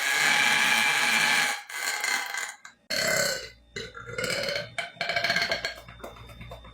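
A person burping: one long burp that breaks off abruptly about a second and a half in, then four or five shorter burps in quick succession.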